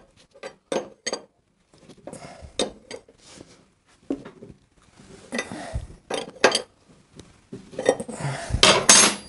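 Metal hand tools clinking and clanking as a wrench works the rear axle nut of a Harley-Davidson Shovelhead motorcycle. The sharp knocks come irregularly, in a quick run of clicks in the first second and louder clanks later on.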